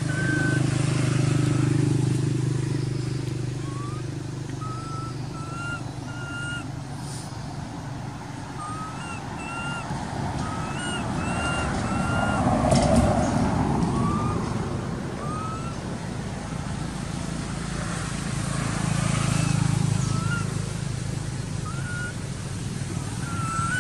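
Road vehicles passing, their engine hum swelling three times, loudest as a car goes by about twelve seconds in. A bird repeats short rising whistles over them.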